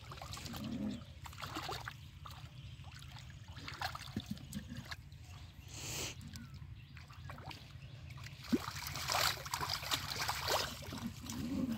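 Hands splashing and sloshing in shallow muddy water, in irregular short splashes that grow busier and louder in the last few seconds.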